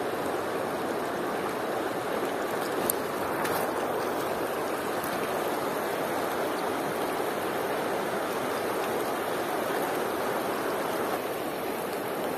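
Fast-flowing river current rushing steadily over rocks, with a few faint clicks about three seconds in.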